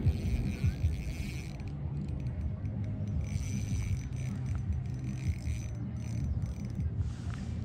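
Spinning reel cranked in spells while a hooked bluegill is reeled in, its gears whirring, over a low steady rumble.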